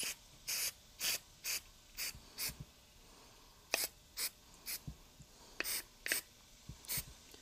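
Aerosol spray can fired through its extension straw into carburetor passages, giving about a dozen short bursts of hiss in two runs.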